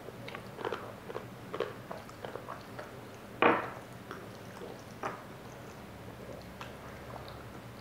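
Pop Rocks candy crackling in a child's mouth as he chews it: a scatter of small sharp pops and crunches, with one louder knock about three and a half seconds in.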